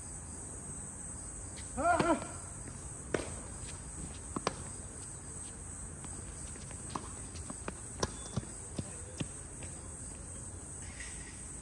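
Insects chirring steadily in a high, even band. About two seconds in a voice calls out briefly, and a scattering of sharp knocks follows, a quick run of them coming near the end.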